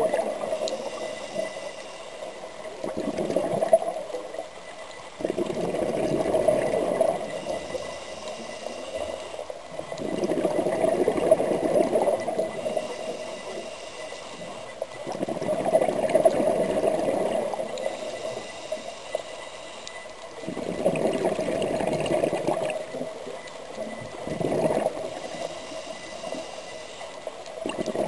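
Scuba breathing through a regulator underwater: exhaled bubbles gurgle in loud surges about every five seconds, with a thin hiss from the regulator on each inhale between them.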